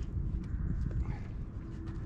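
Wind rumbling on the microphone, with a few light knocks from someone moving about on a small boat's deck.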